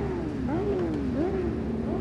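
Sportbike engines revved in quick throttle blips, the pitch jumping up and sliding back down several times.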